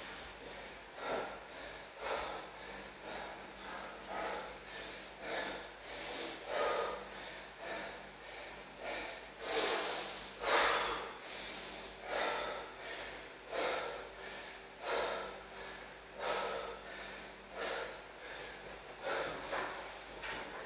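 A man's heavy, rhythmic breathing, deep forceful breaths about once a second, as he catches his breath after hard exercise.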